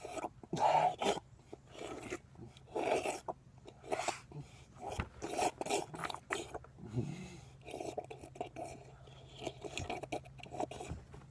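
A person lapping water from a stainless steel dog bowl with his tongue: irregular wet slurps and splashes, about one every half second to a second.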